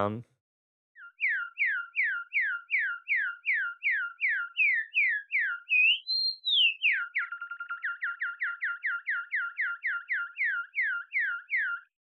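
Synthesized bird tweets from a Native Instruments Absynth 5 patch: looping pitch and amplitude envelopes give a string of quick falling chirps, about three a second. Midway one slower chirp swoops up and back down, then the falling tweets resume a little lower and faster before stopping just short of the end.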